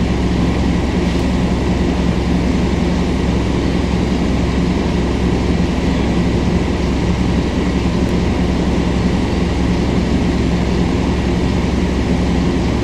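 Scania K230UB bus's Scania DC9 diesel engine running at a steady pace with road noise, heard from inside the passenger cabin. The drone stays even throughout, with no gear change or braking.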